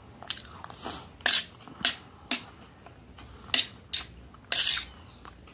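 Close-up eating sounds: a metal spoon clinking and scraping on a metal plate, with chewing. About half a dozen short, sharp clicks, then a longer scrape about four and a half seconds in.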